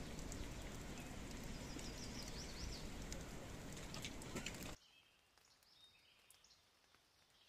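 Outdoor background noise with a few small bird chirps. It drops away abruptly nearly five seconds in, leaving near silence with faint chirps.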